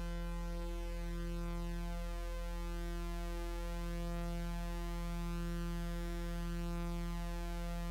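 Electronic music: a steady synthesizer drone of held, unchanging tones over a deep bass note.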